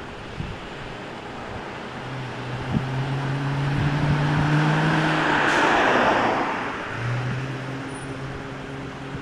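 A vehicle passing close by on the road: its tyre and engine noise swells to a peak about six seconds in and then fades, and its engine hum drops in pitch as it goes by.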